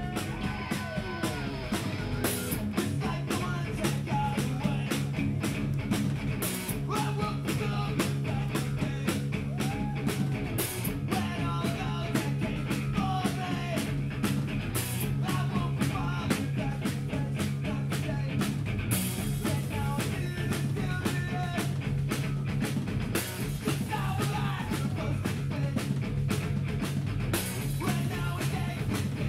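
Live rock band playing a song: electric guitars, bass guitar and drum kit, with a man singing lead vocals over them.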